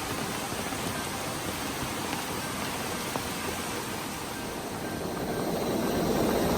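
A steady rush of water noise, growing louder in the last second or so.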